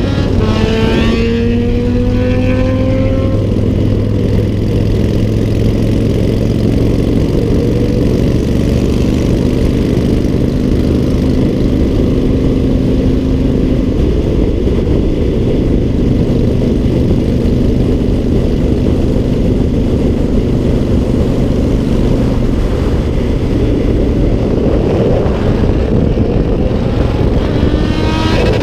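Motorcycle engine pulling hard with a gear change about a second in, then running at steady motorway speed under a heavy rush of wind and road noise. The engine note climbs again near the end.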